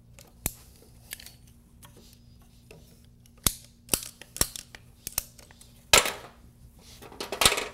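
Scissor-style PEX tubing cutter snipping through plastic PEX pipe: a string of sharp clicks and snaps, the loudest about six seconds in and again near the end.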